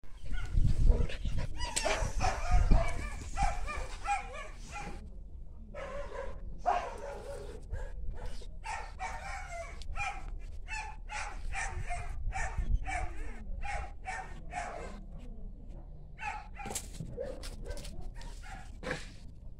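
Dog barking over and over in short barks, close together in the first few seconds, then a steady series of about two to three barks a second.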